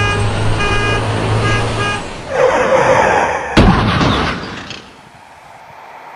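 A vehicle horn sounds a few short toots over a low engine rumble. Then a loud rushing noise builds, a single sharp bang comes about three and a half seconds in, and the sound dies down to a faint hiss.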